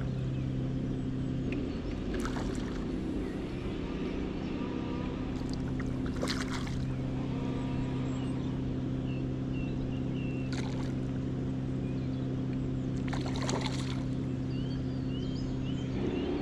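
A steady low motor hum, with a few short rising chirps and several brief rustles over it.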